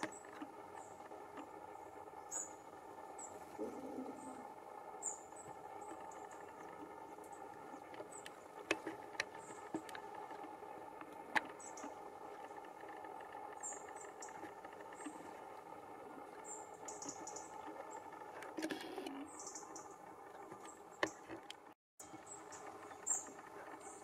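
Female great spotted woodpecker pecking at a weathered log: scattered sharp taps of its bill on the wood, in little clusters, over a steady low background hum.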